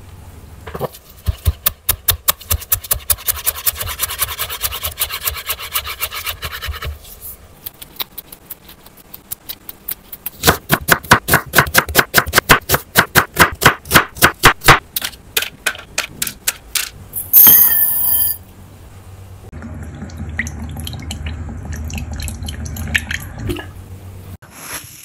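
A chef's knife slicing an onion on a bamboo cutting board, a fast run of crisp strokes hitting the board at about five a second. A similar, slower run of cutting taps comes before it. Later there is one brief loud clatter, then water sloshing as soaking rice is swirled by hand in a glass bowl.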